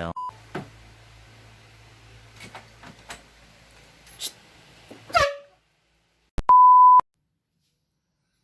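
Electronic beep tones dubbed in as edits: a very short blip at the start, and about six and a half seconds in a loud, steady half-second beep of the censor-bleep kind. Before the loud beep there is a faint low hum with scattered clicks and a brief gliding sound about five seconds in.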